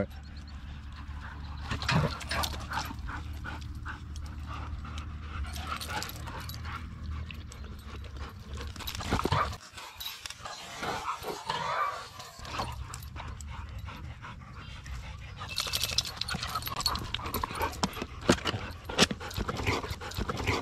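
Several dogs playing rough at close range, panting and scuffling, with scattered short knocks and scrapes.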